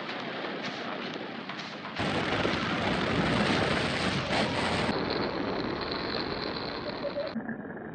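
Wind rushing over the microphone of a moving motorcycle: a dense, even noise with no clear engine note, turning louder about two seconds in.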